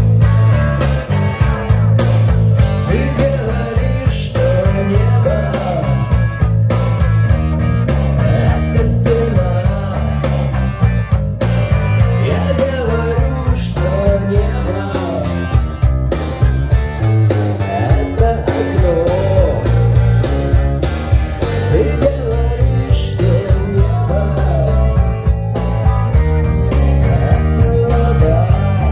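Guitar-led rock music played back on a hi-fi system through a pair of Denon floorstanding loudspeakers, with a steady low beat and a wavering lead line over it.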